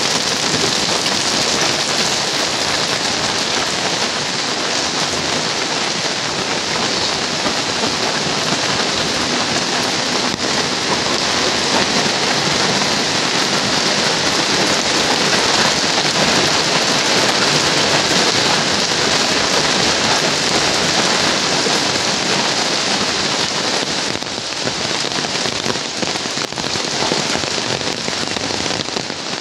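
Heavy rain pouring down steadily, a dense, even hiss that eases slightly for a few seconds near the end.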